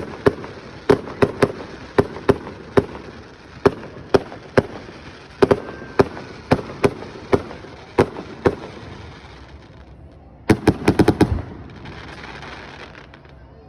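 Fireworks display: aerial shells bursting in an irregular run of sharp bangs, one or two a second, then a short lull and a rapid cluster of bangs about ten and a half seconds in, followed by a hiss that fades away.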